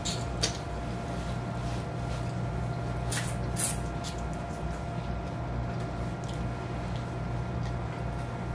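Close-up eating of a chicken wing: chewing and mouth sounds, with short crisp crunches near the start and a louder pair about three seconds in. A steady low hum runs underneath.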